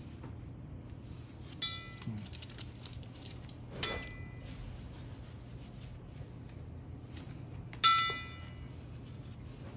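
Metal hardware on sidemount tank webbing, a stainless bolt snap and ring, clinking against the scuba cylinder. There are three sharp ringing clinks: one a little over a second in, one about four seconds in, and the loudest near the end. Lighter handling ticks come between them.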